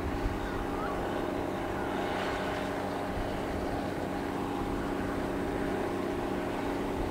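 Steady mechanical drone with several held low tones and a hiss. It does not swell or fade.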